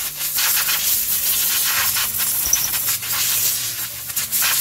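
Compressed air hissing from an air blow gun aimed at a car's rear brake caliper bracket and hub, blowing out dust and debris during a brake pad change. The hiss is loud, continuous and wavers in strength.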